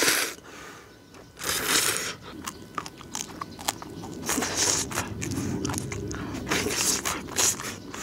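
Close-miked eating of mugwort kalguksu noodle soup: a loud slurp of noodles about a second and a half in, then chewing with many small wet clicks and smacks.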